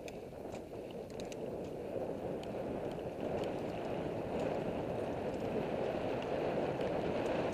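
Wind rushing over the camera microphone and knobby mountain-bike tyres rolling over a dirt singletrack, with scattered light clicks and rattles from the bike. The noise grows louder as the bike picks up speed.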